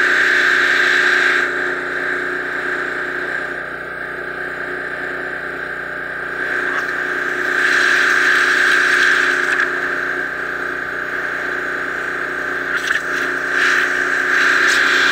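Pressure washer running with a steady tone while its zero-tip straight stream blasts into dirt and mud, cutting a trench. The hiss of the jet drops about a second and a half in and swells again around eight seconds and near the end.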